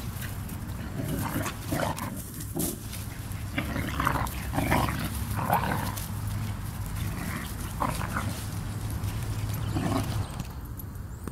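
Puppies vocalizing while they play-wrestle: about a dozen short calls spread through the first ten seconds.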